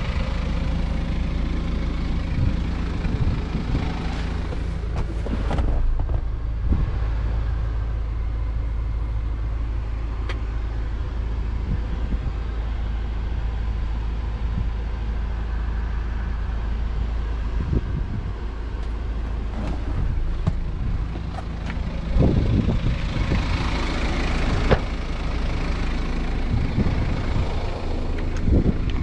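BMW SUV's engine idling steadily as a low hum, with scattered knocks and clicks of handling. A rush of wind comes in about three-quarters of the way through.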